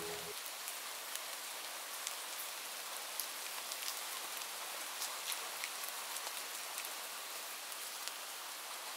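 Steady rain: an even hiss of patter with scattered sharp drop ticks. A sustained music chord cuts off just after the start.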